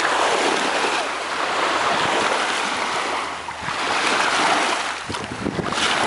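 Small waves washing up and receding over sand at the water's edge, the wash swelling and fading every couple of seconds, with splashing as a wave breaks near the end.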